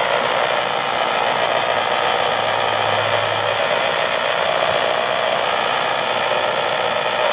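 Steady hiss of radio static from a receiver, with no voice or alert tones in it.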